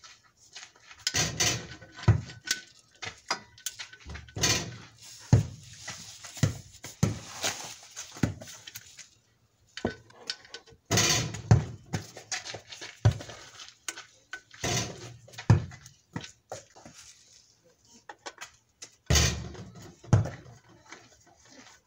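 Socket ratchet clicking and metal tools clinking against the oil pan in irregular bursts as the oil-pan drain bolt is threaded back in and tightened.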